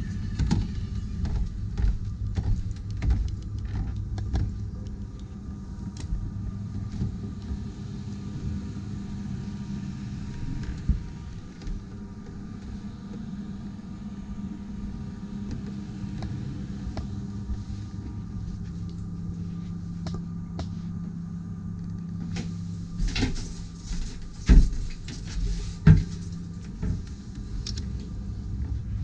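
A steady low hum with a few held low tones, broken by scattered clicks and knocks and two sharp thumps a little over two-thirds of the way through.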